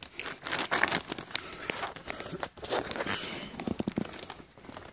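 Dry leaf litter and twigs rustling and crackling, with many small sharp snaps and crinkles.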